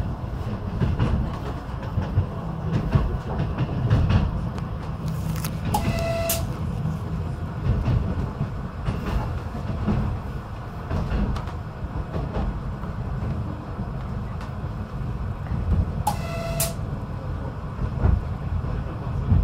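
PESA 620M diesel railcar running along the track: a steady low rumble with the clickety-clack of wheels over rail joints. A brief pitched tone sounds twice, about 6 and 16 seconds in.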